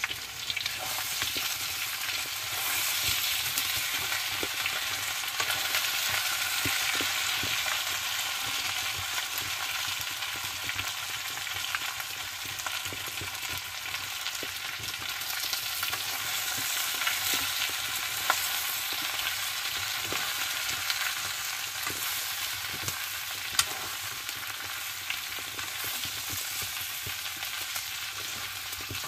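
Chicken pieces sizzling in a kadai over an open fire while a metal spatula stirs them, scraping and clicking against the pan. One sharper click comes about two-thirds of the way through.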